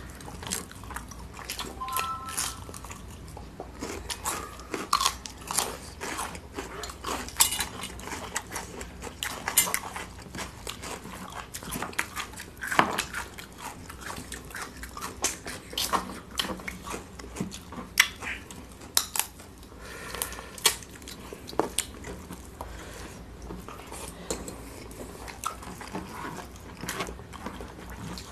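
Close-up eating sounds: wet chewing and lip smacks from two people eating rice and curry with their hands, with irregular sharp clicks and occasional taps of fingers against the plates.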